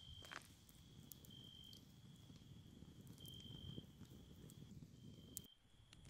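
Crickets trilling at one steady high pitch, louder in short stretches, over a low steady rumble.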